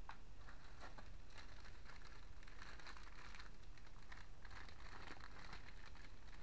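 Clear plastic bag crinkling as a bagged cable is lifted out of foam packing and handled, in irregular crackly bursts with a few sharp clicks near the start.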